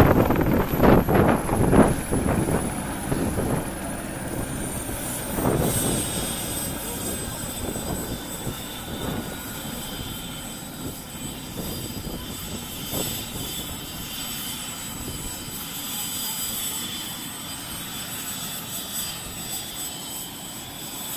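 Turbine helicopter shutting down after landing. The main rotor's heavy beat fades over the first few seconds while the turbine's high whine falls in pitch, then settles into a steady high whistle as the rotor winds down.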